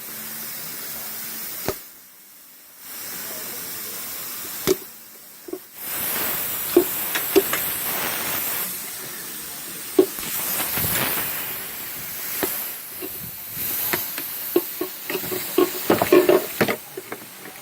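Scattered clicks and knocks of hand tools and parts being handled during work on a car's airbag control module, over a steady hiss that briefly drops out twice in the first few seconds.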